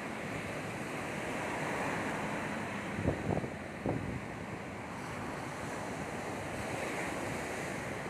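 Surf breaking and washing up a sandy beach in a steady hiss that swells and eases. A few short gusts of wind bump the microphone about three to four seconds in.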